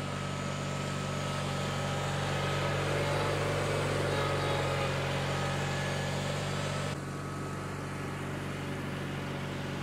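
John Deere 316 garden tractor engine running steadily as the tractor drives along. About seven seconds in, the sound turns a little duller.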